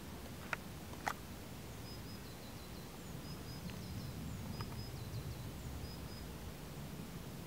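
Low steady background rumble with a small bird's short high chirps repeating about once a second, and two sharp clicks about half a second and a second in.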